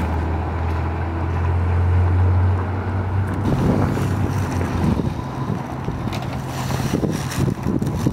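A steady low engine hum for about the first three and a half seconds, then gusty wind noise on the microphone with crunching footsteps on gravel.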